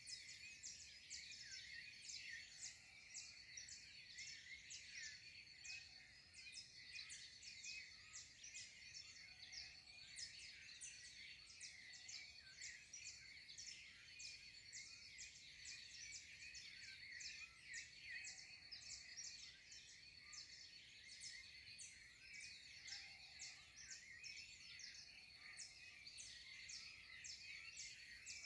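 Dawn chorus: many birds chirping and trilling at once, faint and continuous, with a steady high-pitched tone running underneath.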